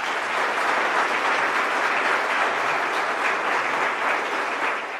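Congregation applauding steadily, dense clapping that greets a newly baptized believer as he rises from the water.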